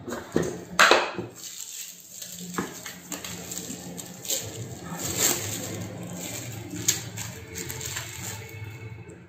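Thin plastic bag crinkling and rustling as a bag-covered hand pulls sticky risen yeast dough out of a bowl, with scattered sharp clicks and knocks, the loudest about a second in.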